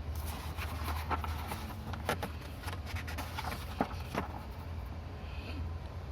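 Paper rustling with several sharp clicks and crackles as a printed manual's pages are handled and turned, stopping a little after four seconds, over a steady low hum.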